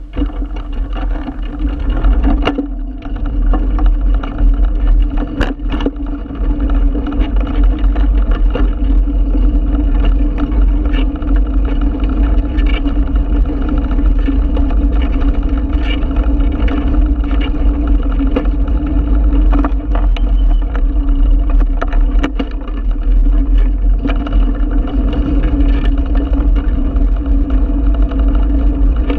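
Bicycle riding over brick paving, heard through a handlebar-mounted camera: a loud, steady low rumble of tyres and frame vibration, broken by short knocks and rattles as the bike jolts over the bricks.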